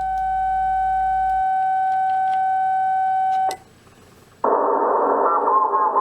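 A transceiver's CW sidetone: one steady tone while the transmitter is held keyed at 10 watts to tune a magnetic loop antenna. It stops about three and a half seconds in. After a short gap the receiver comes back with band hiss and a warbling received signal.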